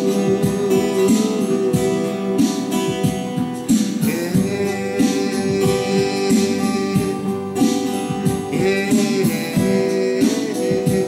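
A 12-string acoustic guitar being strummed and picked in a steady song, with a voice singing along.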